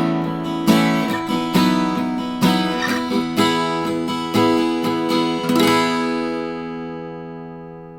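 Chibson L-00 acoustic guitar strummed, a chord about every second, then a final chord left to ring and fade out.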